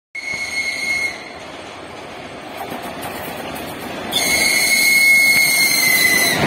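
ChS4 electric locomotive's high-pitched whistle sounded twice: a blast of about a second, then a longer one of about two seconds that sags slightly in pitch at its end. With the second blast, the rolling rumble of the arriving passenger train grows loud as the locomotive passes.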